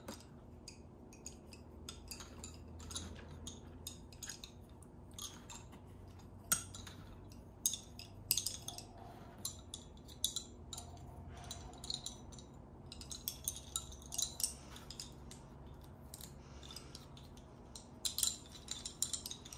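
Wooden bobbin-lace bobbins clicking and tapping against one another as they are crossed and twisted four at a time while working a surcido. The taps come irregularly, in small flurries, over a faint low hum.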